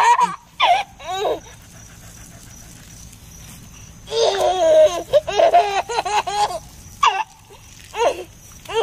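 A baby laughing in several bursts, with the longest a run of quick, high-pitched laughs from about four to six and a half seconds in.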